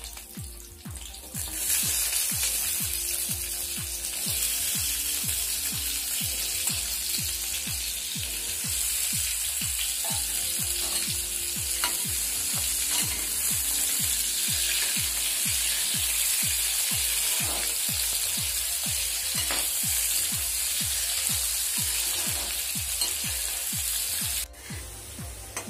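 Cubed potatoes sizzling steadily as they fry in hot oil in a kadhai. The sizzle swells about a second and a half in, as the potatoes go into the oil, and cuts off suddenly near the end.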